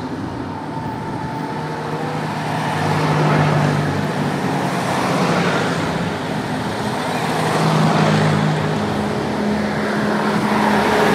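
A convoy of vintage WWII military jeeps and trucks driving past at low speed, engines running with a steady low hum and tyre noise, swelling as each vehicle comes close and loudest near the end.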